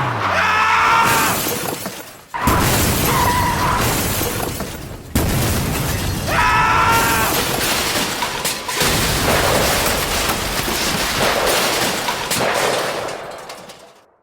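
Loud crash and shattering sound effects in several sections that start suddenly, with a short wavering pitched cry twice, near the start and about six seconds in.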